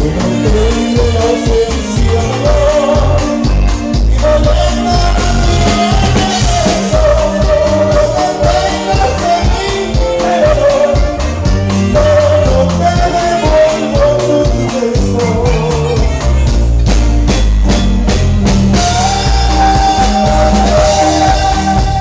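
Live band playing a dance song: a sung melody line over a steady, driving bass and drum beat.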